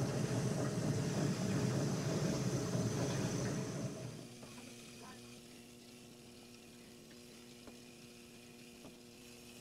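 Old Weil-McLain gas boiler giving a steady sizzling, crackling hiss, which drops away about four seconds in to a faint steady low hum with a few light ticks.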